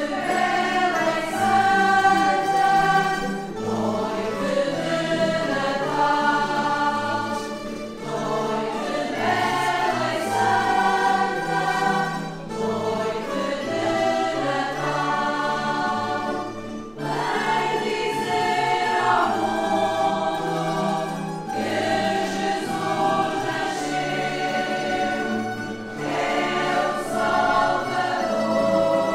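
A group of voices singing a religious song together in sustained phrases, with small guitar-type stringed instruments accompanying.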